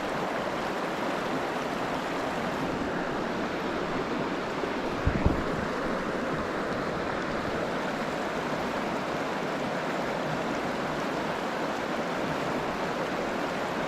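Steady rush of a mountain trout stream flowing over rocks, with one brief low knock about five seconds in.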